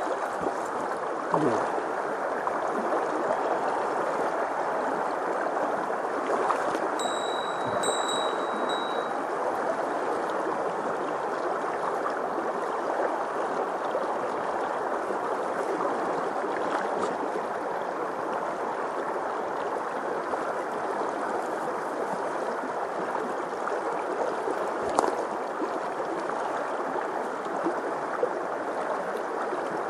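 Mountain stream rushing steadily over rocks, with a brief clear bell-like ring about seven seconds in.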